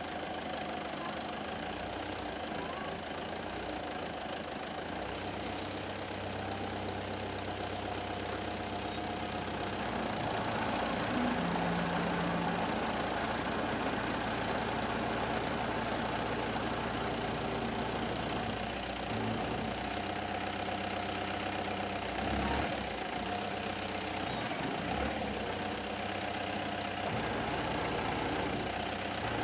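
Heavy truck engine idling steadily, getting a little louder about ten seconds in, with a few faint knocks later on.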